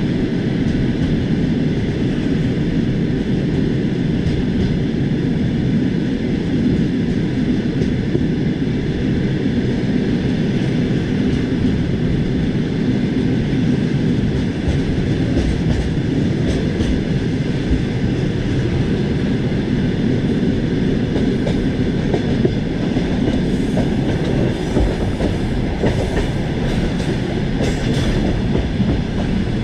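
Train wheels running over the rails: a steady rumble with light clicks, a few more of them in the later part.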